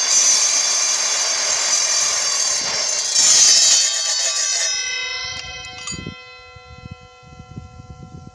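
Evolution R255SMS mitre saw cutting 3 mm-wall steel pipe, a loud, dense grinding sound that swells near the end of the cut. It stops abruptly about four and a half seconds in, leaving a metallic ringing of several steady tones that slowly fades.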